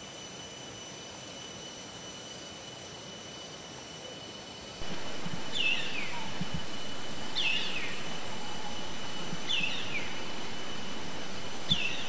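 Black baza calling: four short calls, each falling in pitch, about two seconds apart, starting about five seconds in. Underneath runs a steady background hiss and a thin high tone.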